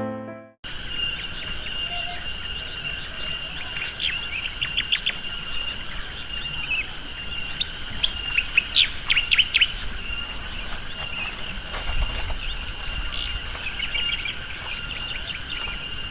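Insects calling in a steady high drone of several held tones, with bursts of short bird chirps over it several times. A piano tune cuts off just at the start.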